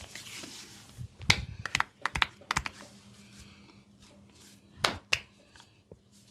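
Sharp clicks and snaps from a barber's hands working the head and neck during a massage: a quick run of about six clicks, then two more a couple of seconds later.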